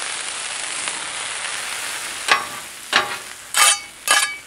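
Diced hash-brown potatoes sizzling on a steel griddle top while a steel spatula works through them. About two seconds in, four short, ringing metal strikes of the spatula on the griddle follow, roughly half a second apart.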